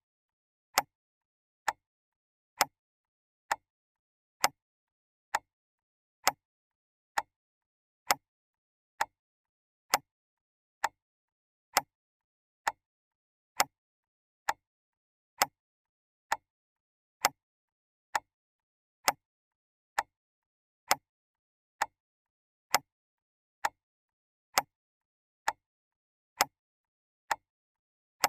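Clock ticking: sharp, even ticks a little under a second apart, alternating slightly in loudness like a tick-tock.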